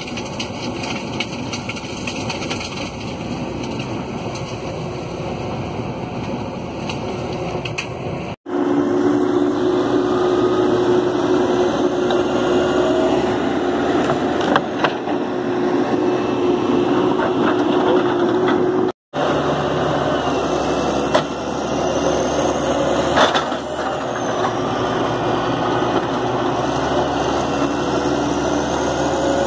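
Heavy diesel machinery running under load: a JCB JS130 hydraulic excavator's engine with faint rising and falling whines, heard first from inside the cab, then together with a Cat D6D crawler dozer's diesel engine as the excavator works to pull the bogged dozer out of the mud. The sound breaks off twice for an instant, about a third and two thirds of the way through.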